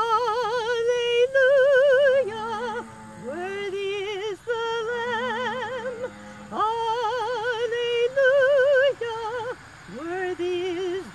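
A woman singing solo, holding long notes with a wide, even vibrato in several phrases, each broken by a short breath.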